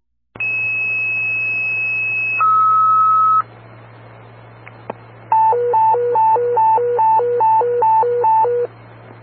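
Fire dispatch alerting tones over a scanner radio. First a two-tone sequential pager tone: a high steady tone for about two seconds, then a lower tone for about one second. After a short stretch of radio hiss comes a hi-lo alert tone, switching between two pitches a little over twice a second for about three seconds.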